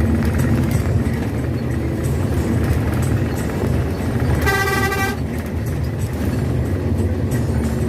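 Steady engine and road drone of an intercity bus, with a single horn blast of under a second about four and a half seconds in.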